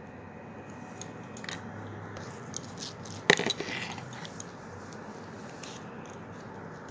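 Faint handling sounds of thin craft wire being twisted around an artificial flower's stem: a few small ticks and rustles, with one sharper click a little past the middle, over a steady low hiss.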